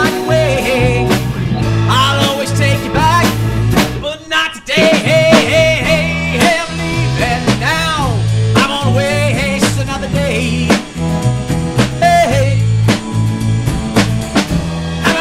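A rock band playing live: electric guitar, electric bass, drum kit and keyboard, with a short break about four and a half seconds in before the band comes back in.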